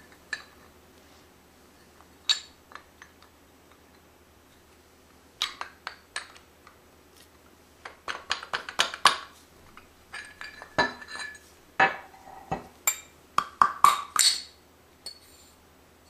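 Metal engine parts, an aluminium piston, a connecting rod and a steel wrist pin, clinking and tapping against each other and the stone countertop as they are handled and lined up. Scattered light clicks and clinks come in short flurries with quiet stretches between, busiest in the second half.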